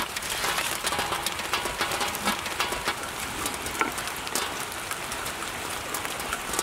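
Tamarind fish curry boiling hard in a large pot: a dense hiss of bubbling with many small pops and crackles.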